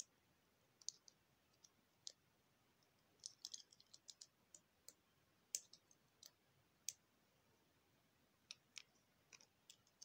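Faint, irregular clicks of small plastic Lego pieces being handled and pressed together, with a busier run of clicks a little before the middle.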